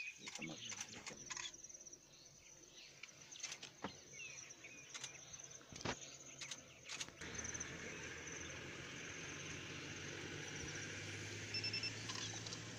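Steady high-pitched insect chirring over the bush, with scattered light clicks and knocks. About seven seconds in, a low steady hum joins.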